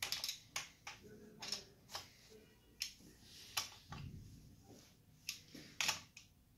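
Scattered light clicks and taps, several over a few seconds, as the metal housing and cable of a submersible sewage pump are handled.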